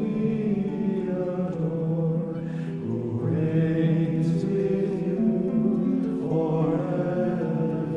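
Monastic chant sung by a small group of men's voices together, slow phrases of long held notes moving in steps, with a new phrase beginning about three seconds in and again near the end.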